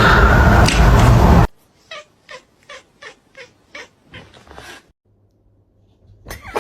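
A loud harsh noise cuts off abruptly about a second and a half in. Then a cat gives a quick run of about eight short meows, roughly three a second.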